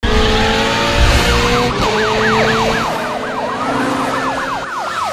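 Police car sirens. Steady tones for about the first two seconds give way to a fast yelp rising and falling about four times a second, with a slower wail gliding down in pitch near the end.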